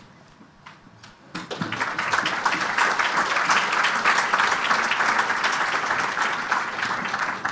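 Audience applauding, a dense patter of many hands that starts about a second and a half in after a brief lull and begins to taper near the end.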